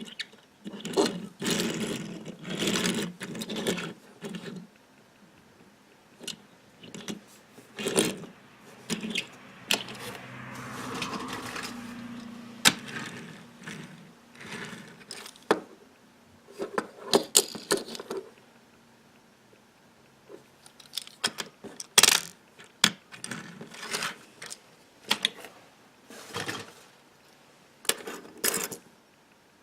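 Small die-cast toy cars being handled: irregular clicks, clinks and scrapes of small metal and plastic parts, with a stretch of steadier noise about ten to thirteen seconds in.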